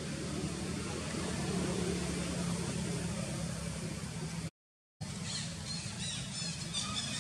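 Steady low hum over background noise, broken about four and a half seconds in by half a second of dead silence. After the gap the background is thinner, with faint short high chirps repeating several times.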